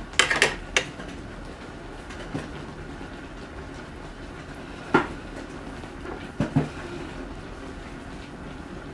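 Several sharp knocks and clatters over a steady low hum, as a wooden dining chair and things on the table are handled: a quick cluster in the first second, single knocks about two and five seconds in, and two close together about six and a half seconds in.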